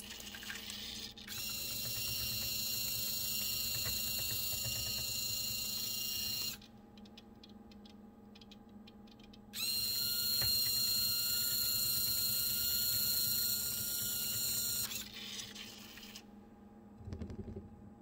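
Small electric motor and gear drive of a model rotary car dumper whining steadily for about five seconds as the barrel turns the car over. Then come a few seconds of light clicking, then the same whine for about five seconds as it turns back, and a soft low thump near the end.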